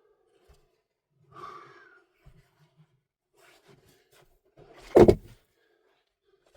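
A short scraping rustle about a second and a half in, then one loud thud about five seconds in.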